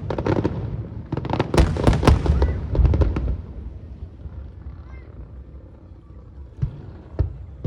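Aerial fireworks bursting overhead: rapid volleys of bangs and crackle for the first three seconds or so, dying away, then a few single bangs near the end.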